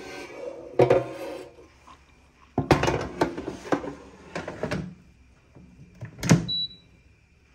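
Instant Vortex Plus air fryer basket being handled and loaded with meat, with bursts of clattering, then the basket pushed shut with a sharp knock about six seconds in, followed straight away by a short high electronic beep from the air fryer.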